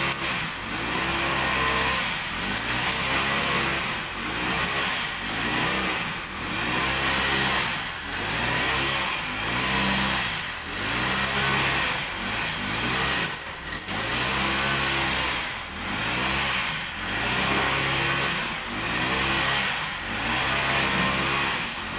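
Brush cutter's small petrol engine running while cutting grass, its pitch rising and falling in a steady cycle about every one and a half seconds as it is swung through the grass.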